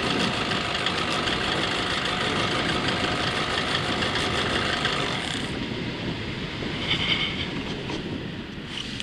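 Paramotor engine and propeller running steadily on the landing approach. About five seconds in its higher tones drop away as the power comes off, leaving a lower rushing noise.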